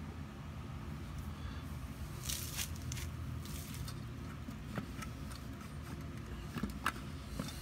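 Hands rubbing and scratching at the bare cylinder deck of a small Briggs & Stratton engine with its head removed, in short bursts, then a few light clicks and knocks of metal being handled near the end, over a steady low hum.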